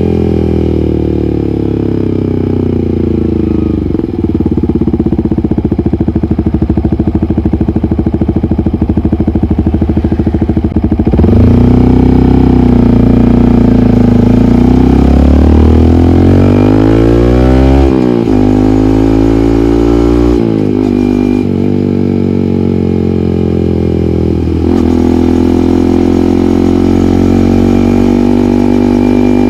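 Yamaha MT-15's 155 cc single-cylinder engine through an SC Project aftermarket muffler, under way on the road. The revs fall and hold, then climb hard under acceleration, the loudest stretch. The pitch then drops and rises again several times with the gear changes.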